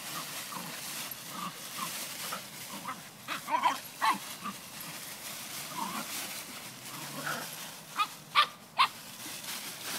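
Two Border Terriers play-fighting, giving short high yaps: a cluster of them about three and a half seconds in and three quick ones near the end.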